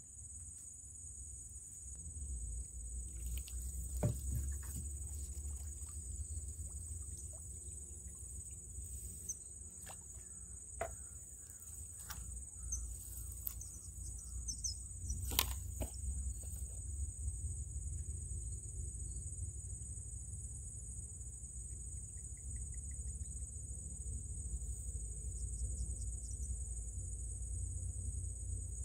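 Steady high-pitched chorus of insects, such as crickets, over a low rumble, with a few scattered sharp clicks, the loudest about halfway through.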